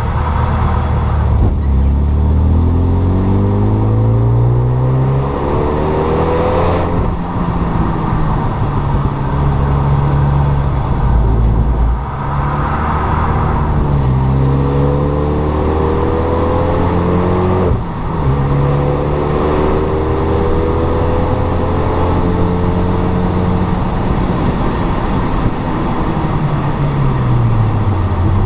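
Renault Mégane 3 RS's stage 2 tuned, 2.0-litre turbocharged four-cylinder engine accelerating hard through the gears, its pitch rising on each pull. Gear changes come about seven seconds in and again about eighteen seconds in, and the engine note falls away near the end.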